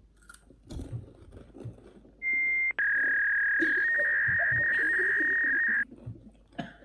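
A loud, steady, high-pitched beep lasting about three seconds that cuts off suddenly, with a shorter, slightly higher tone just before it. Faint crunching and chewing of puffed snacks comes before it.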